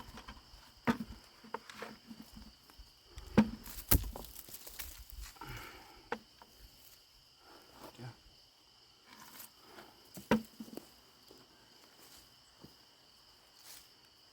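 Scattered knocks and rustles of potatoes being dug by hand out of loose loam and dropped into a bucket, the loudest knock about four seconds in. Insects chirr steadily behind.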